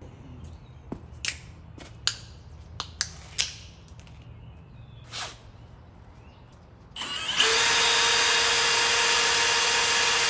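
A few short sharp clicks and brief hisses. About seven seconds in, a power tool or small motor starts and runs steadily with a high whine.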